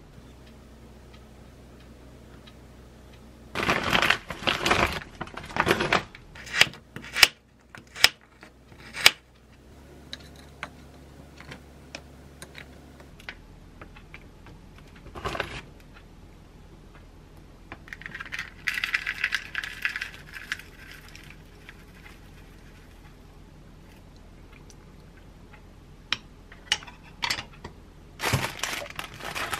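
Food-prep handling sounds while topping a yogurt bowl in a wooden bowl: a packet rustling, several sharp clicks of small hard pieces such as frozen blueberries dropping in, and a longer hiss of something sprinkled or poured. Near the end come more clicks and rustling as the bowl is handled and set down.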